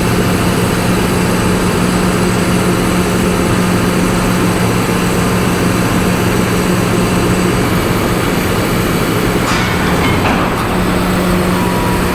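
A steady, loud mechanical drone with a low hum running under it, and a short higher-pitched sound about ten seconds in.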